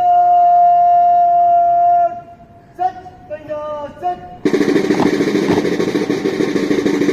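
Bugle call: one long held note, then a few shorter notes at different pitches, followed about four and a half seconds in by a loud drum roll with the band.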